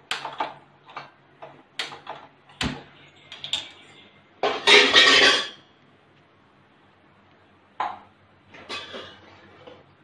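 Stainless-steel pans clinking and clattering on a gas stovetop as a small saucepan is handled and set on a burner: a run of sharp clinks, then a louder rattle lasting about a second just before halfway, and a few scattered knocks after.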